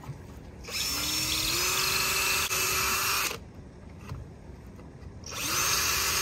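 Cordless drill drilling pilot holes into wood. A run of about two and a half seconds whose whine steps up in pitch partway through, then a second run starting near the end.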